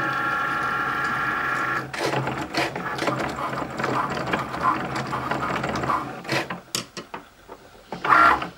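Cricut cutting machine cutting metallic vinyl. Its carriage motors whine steadily for about the first two seconds, then whir and click as the blade carriage moves back and forth. It goes quieter after about six seconds, with a short whine again near the end.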